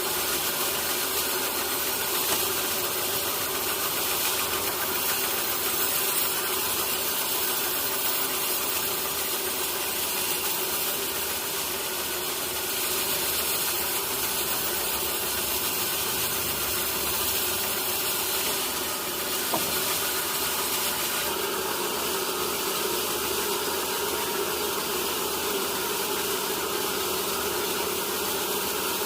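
Sawmill machinery running steadily, a motor-driven saw droning without a break; its sound shifts slightly about twenty seconds in.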